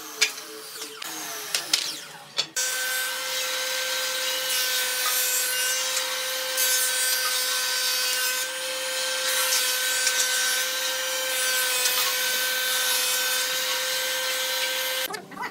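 Combination woodworking machine planing a wooden board: a steady machine whine under a dense rushing hiss of the cutter head taking off shavings, which cuts off abruptly near the end. Before it, about two seconds in, come a few light knocks of wood being handled at a miter saw.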